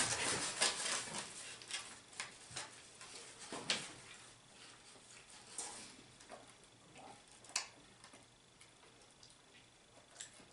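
Two people eating hamburgers fast: quiet chewing and mouth clicks, with handling of the burgers and foam takeaway boxes in the first second or so, then only scattered clicks.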